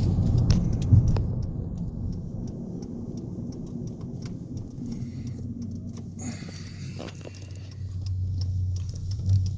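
Hyundai Veloster Turbo's 1.6-litre turbocharged four-cylinder idling in neutral, heard from inside the cabin as a low, steady hum. The engine note gets louder about eight seconds in.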